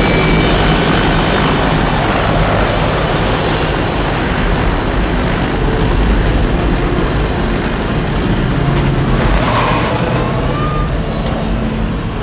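A helicopter close by, its rotor and engine running with a loud, steady noise.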